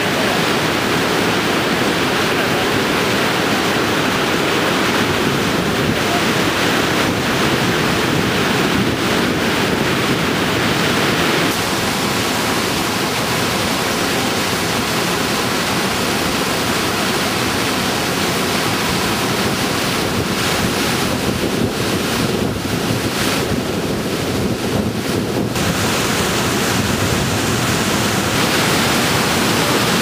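Heavy white water of a large waterfall and its rapids, rushing steadily, with wind buffeting the microphone. The sound changes a little about eleven seconds in, as the view moves to the rapids at water level.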